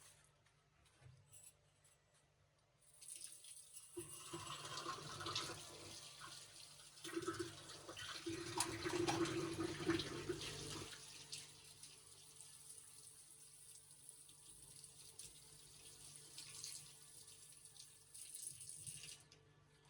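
Water running from a tap into a sink while something is rinsed, with light clatter of handled items. The flow starts a few seconds in, is heaviest for the first several seconds, runs softer after that, and is turned off near the end.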